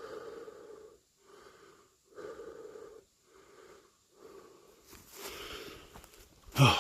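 A man breathing heavily and rhythmically, about one breath a second: he is out of breath from hiking uphill.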